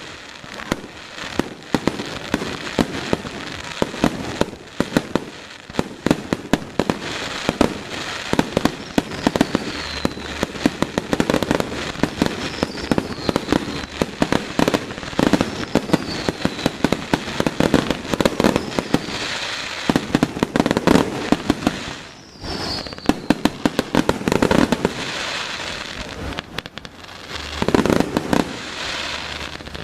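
Fireworks going off in a dense, continuous run of cracks and bangs, with a few short falling whistles.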